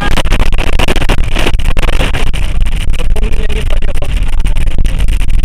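Heavy rain in a thunderstorm, very loud and crackling, over a constant low rumble.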